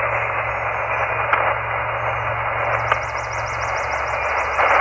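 HF amateur radio transceiver's speaker hissing with band noise while receiving on the 20-meter band between transmissions. The static is held within a narrow voice passband and has a low hum under it.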